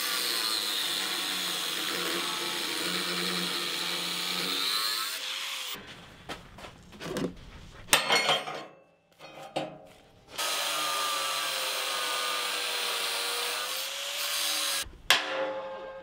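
Angle grinder with a disc grinding steel, its motor whine wavering in pitch under load. It stops about six seconds in, and a few sharp metal knocks follow. Then it grinds again for about four seconds and stops, with a clank near the end.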